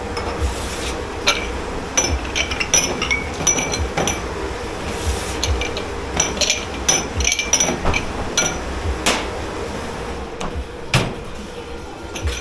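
Crockery, glasses and cutlery clinking and clattering in quick irregular knocks as dishes are handled and stacked, with a single louder knock near the end. Under it runs a steady low hum.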